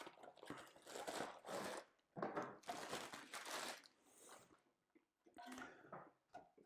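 Unboxing of a product packed in a cardboard box and a plastic bag: several bursts of crinkling, rustling plastic and cardboard handling as the item is pulled out and unwrapped.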